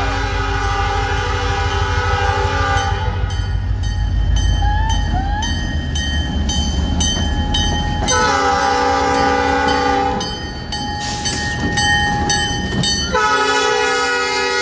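Freight locomotive air horn sounding for a crossing: a long chord fading out about 3 seconds in, another blast of about two seconds after a pause, and a third near the end. A heavy low rumble from the locomotive passing close by runs under the first blast and fades about halfway through.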